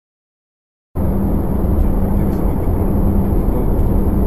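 Silence, then about a second in a steady low rumble of a car driving on a highway, with a steady low engine hum, heard from inside the cabin through a dashcam microphone.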